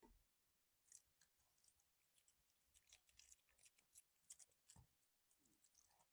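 Faint, irregular crunching and clicking of a Pomeranian dog chewing its food, several bites a second.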